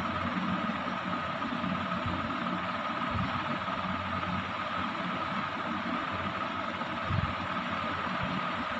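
Steady electric whir and hum, with a constant high-pitched whine over a low mains hum, as from a running ceiling fan; a brief low bump about seven seconds in.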